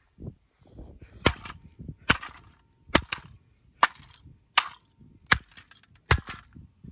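A hammer repeatedly smashing the plastic casing of an old electronic device on pavement: seven sharp cracking blows in a steady rhythm, about one every 0.8 seconds, starting about a second in.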